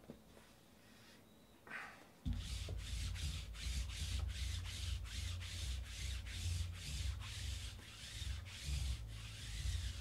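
A lint roller rolled back and forth across a tabletop mat in quick repeated strokes, about two a second, starting about two seconds in.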